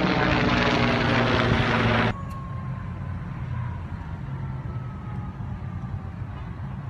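Propeller aircraft engine drone passing overhead, dropping slightly in pitch, cut off abruptly about two seconds in. After that, a much quieter low rumble with wind noise on the microphone and a faint falling whine.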